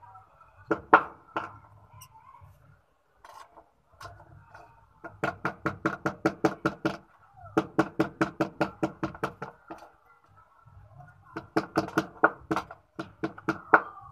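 A small hand hammer tapping metal on a small steel block in quick runs of about five strokes a second, each tap with a short metallic ring. There are a few single strikes about a second in.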